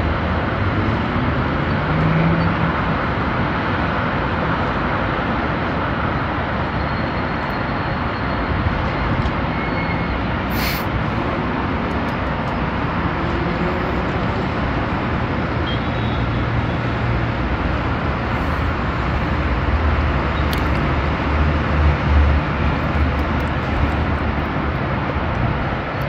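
Steady road traffic on a multi-lane highway: cars and trucks passing, with a deeper engine rumble swelling near the end.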